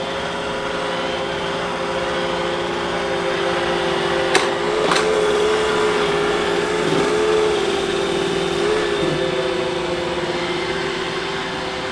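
iRobot Roomba robot vacuum running across the floor, a steady motor and brush whir whose pitch wavers in the middle, with two sharp clicks about four and five seconds in.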